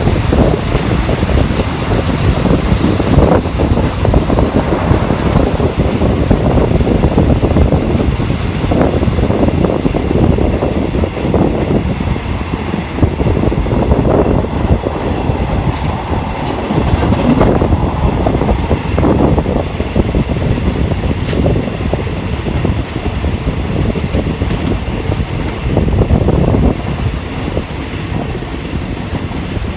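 Moving train heard from on board: a steady rumble of wheels on rail with rushing wind noise.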